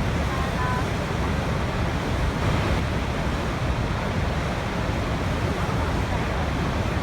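Waterfall: water falling and rushing in a steady, unbroken stream.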